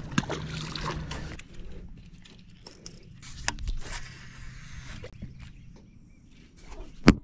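Handling noises of fishing gear on a boat deck: scattered clicks and rustles as a baitcasting rod and reel are swung into a cast, with a low hum in the first second or so and a single sharp knock near the end.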